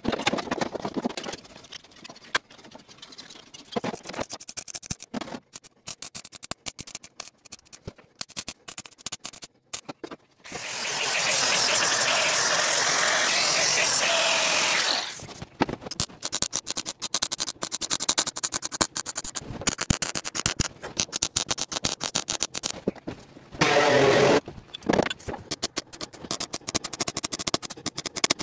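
Angle grinder cutting through sheet-steel floor pan, a steady loud run of several seconds around the middle, and a MIG welder's crackling arc in short stitch bursts through the rest, with another brief loud burst about three-quarters through.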